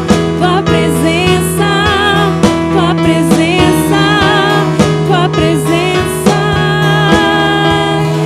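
Gospel worship music from a band: drums keeping a steady beat, a held bass note, and a melody line with vibrato over the top.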